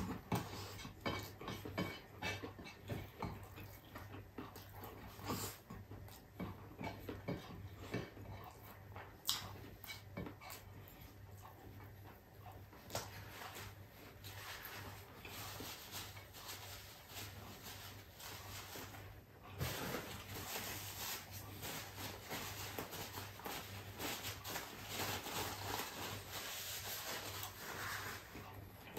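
Close-miked eating sounds: a man chewing mouthfuls of garlic fried rice and beef pares eaten by hand, with many short wet smacks of lips and fingers. In the second half a paper tissue rustles as he wipes his hands.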